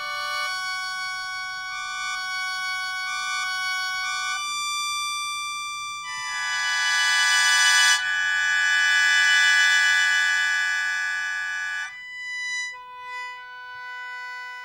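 Sho, the Japanese bamboo free-reed mouth organ, playing long held chords of several high tones at once. The chord shifts about four seconds in, swells to a louder, fuller chord from about six seconds, then drops to a softer chord that fades away near the end.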